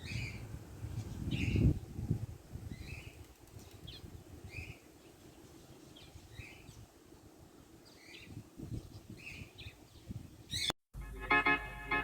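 Parrots in an aviary giving short, repeated chirping calls, about one a second, over a low rumble that is loudest about a second and a half in. Near the end the sound cuts out briefly and music begins.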